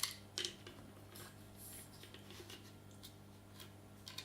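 A few faint clicks and knocks from handling a gimbal's small folding tripod legs, the loudest two in the first half second, over a low steady hum.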